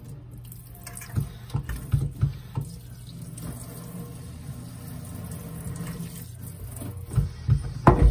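Kitchen sink pull-out sprayer running, its spray splashing steadily into a soapy stainless steel basin. Several sharp knocks come about one to two and a half seconds in, and again near the end, where the loudest one falls.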